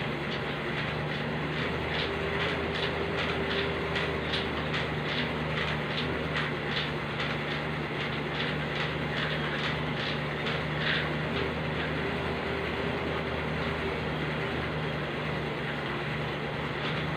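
Elliptical cross-trainer being pedalled steadily: a steady mechanical hum with a regular clicking, two to three clicks a second, that grows fainter in the second half.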